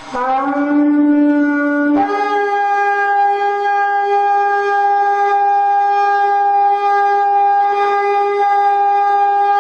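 Shofar blown in one long blast: a lower note for about two seconds jumps up to a higher note that is held steadily for over seven seconds. It is the shofar call sounded at the close of Yom Kippur.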